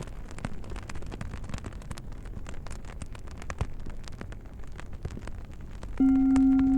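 Bonfire crackling, with many sharp pops and snaps over a low rumble. About six seconds in, a low singing bowl is struck and rings on in one steady low tone with fainter higher overtones, much louder than the fire.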